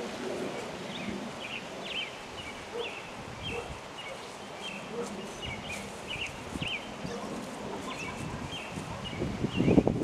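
A small bird chirping repeatedly in short calls over outdoor ambience, with soft rustling of footsteps on grass. A few louder low thumps come near the end.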